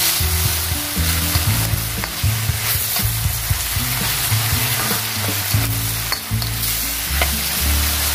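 Chicken strips sizzling in hot oil in a wok over high heat, stirred continuously, with scattered clicks of the spatula against the wok.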